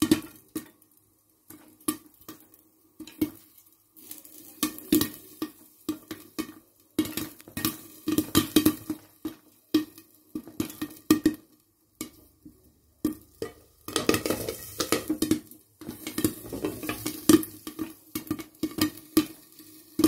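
Popcorn kernels popping in a pan covered with a glass lid: irregular sharp pops that come in clusters with short quiet gaps, thickest about two-thirds of the way through.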